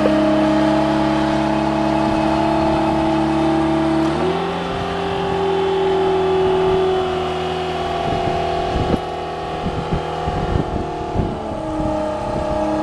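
Aerial work lift's engine running under load as the platform is raised, its note stepping up about four seconds in and dropping back near the end as the lift tops out. A few short knocks come in the latter half.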